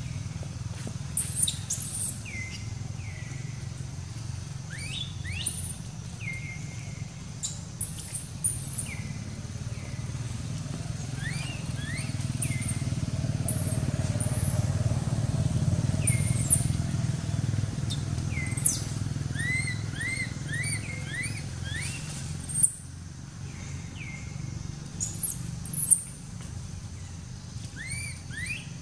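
Birds calling with many short, high rising chirps and whistles, often in quick runs of three or four, over a steady low rumble that swells in the middle. Two brief sharp sounds come in the second half.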